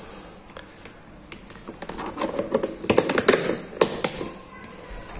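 Plastic food containers handled by hand: a scattered run of light clicks and taps, thickest between about two and four seconds in.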